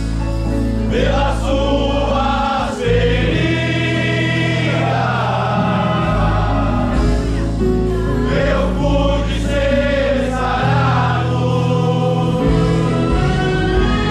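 Gospel music: voices singing together as a choir over sustained low instrumental notes.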